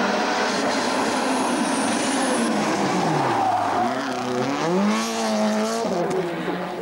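Rally car engine at full song: the revs fall steeply about three seconds in, then climb again and hold high, dropping once more near the end as it shifts gear.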